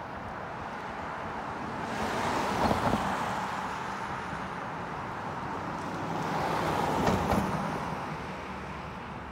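Street traffic: two cars pass by, the first about two and a half seconds in and the second about seven seconds in, each swelling and fading over a couple of seconds above steady road noise.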